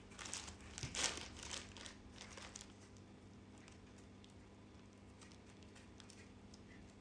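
Clear plastic wrapping crinkling and rustling as it is pulled off a crystal by hand, busiest in the first two or three seconds, then dying down to a few faint rustles.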